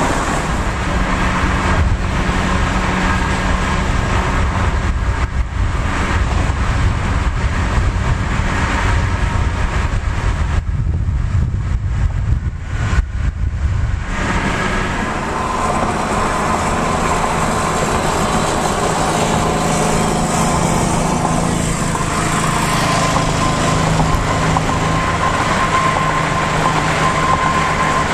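Road and engine noise heard from inside a moving car: a steady rumble at highway speed that changes about halfway through to a lighter hum with less low rumble.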